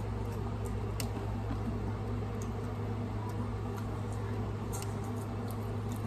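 A person chewing a corn dog: faint wet mouth clicks now and then over a steady low hum.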